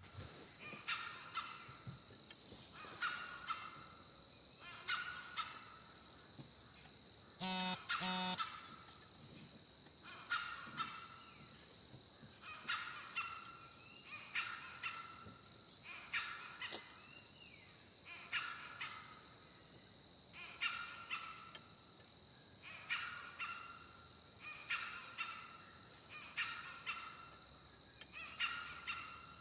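A bird, crow-like in its cawing, calls over and over, one call every one to two seconds. About eight seconds in come two short, loud, lower-pitched calls in quick succession.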